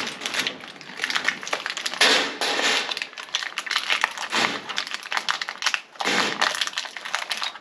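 A plastic hardware bag crinkling as it is opened, with many small clicks of metal nuts and washers being handled on a steel mesh cart bed.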